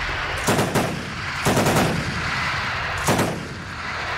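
Battlefield explosions and gunfire: three pairs of sharp bangs, spaced about a second apart, over a steady rushing noise.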